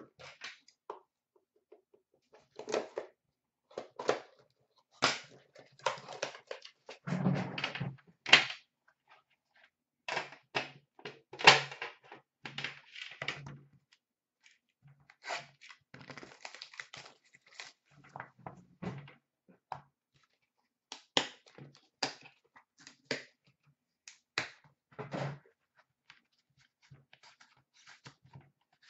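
Handling of a hockey card tin and the cardboard box inside it: repeated clicks and knocks of metal and cardboard being set down and opened, with stretches of scraping and rustling as the box is slid and unpacked.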